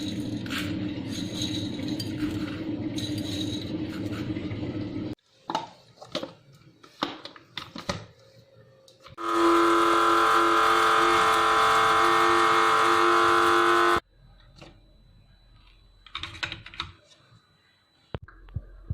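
Kitchen utensils and containers clinking and knocking, then a small electric kitchen appliance motor runs with a steady hum for about five seconds, starting and stopping abruptly, before more light knocks.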